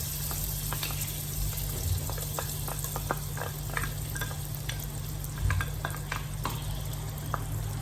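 Butter sizzling as it melts in a hot frying pan: a steady hiss with scattered small crackling pops, over a steady low hum.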